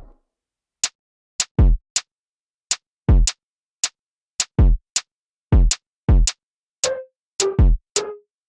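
A bare hip-hop drum-machine beat with no other instruments: a deep kick drum about every one and a half seconds, with sharp, crisp hits in between and dead silence around each hit. From about seven seconds in, some hits carry a short pitched ring.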